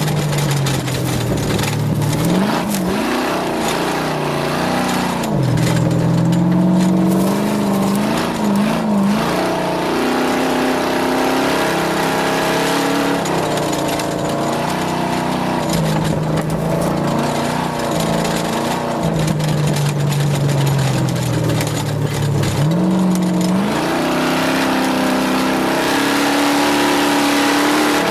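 Off-road race vehicle's engine at speed, its pitch rising and falling as the throttle goes on and off, dropping sharply twice, with a steady rush of wind and terrain noise over it.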